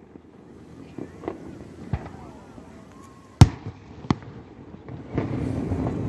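Fireworks shells bursting: a series of sharp booms a second or so apart, the loudest about three and a half seconds in, followed near the end by a denser, steadier rumble.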